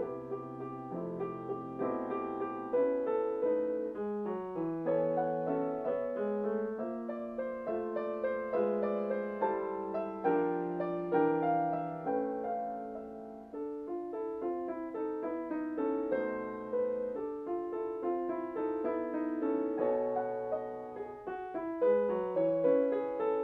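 Solo grand piano played at a moderate, flowing tempo: a gentle Romantic-style bagatelle, with a melody over changing chords and notes struck and left to ring.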